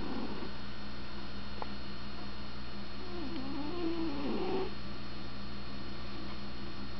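A sleeping cat snoring. The tail of one snore comes right at the start, then one long, wavering snore about three to four and a half seconds in, over a steady electrical hum.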